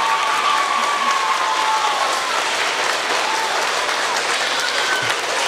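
An audience of schoolchildren applauding, a steady patter of many hands clapping, with a few voices calling out over it in the first couple of seconds.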